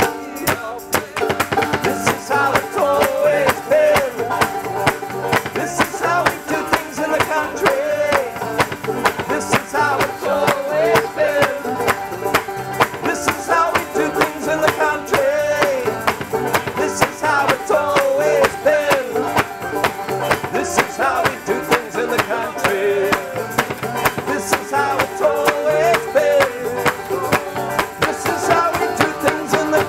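Live acoustic country band playing an uptempo instrumental passage: two banjos picking over an upright bass, with a steady beat of hand claps.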